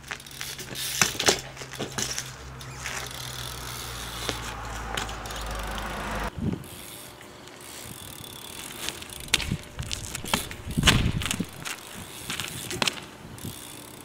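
BMX bike ridden and tricked on asphalt: tyres rolling with many sharp clicks and knocks from the bike, and a heavy knock about eleven seconds in.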